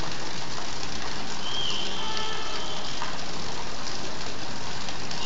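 Water from an overflowing overhead tank pouring and splashing onto a concrete rooftop: a steady rushing hiss.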